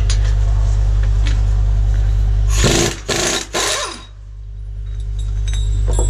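Impact wrench hammering in three short, loud bursts about three seconds in, loosening the saddle-tank mounting bolts on a track tractor. A steady low hum runs underneath.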